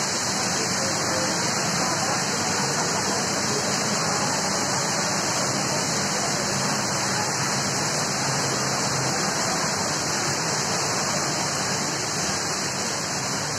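Very heavy rain pouring down in a steady, dense hiss onto pavement and trees.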